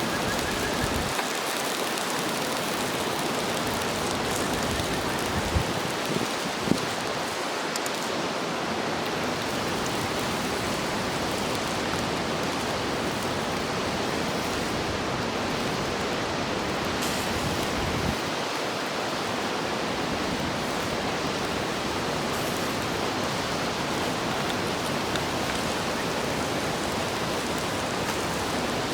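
Food sizzling on a hot iron griddle over a campfire: a steady, dense hiss, with a few sharp pops about five to seven seconds in.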